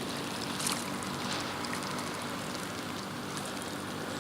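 Steady outdoor background noise with a faint, even low motor hum and a few light ticks.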